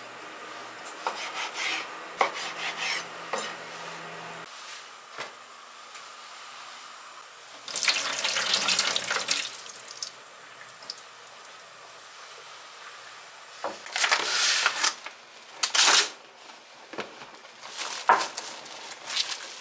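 A chef's knife cutting raw chicken on a wooden cutting board, a few sharp knocks. Then water rushes for about two seconds as sweet potato pieces are rinsed in a glass bowl and drained into a stainless steel sink. Later come further rustling bursts and light clicks.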